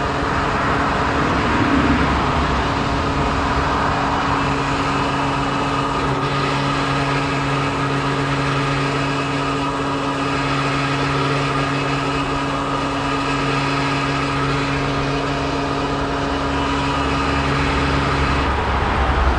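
Petrol pump dispensing fuel into a car's tank: a steady motor hum with the hiss of fuel flowing through the nozzle. Near the end the hum tones cut out as the flow slows toward the preset £40 limit.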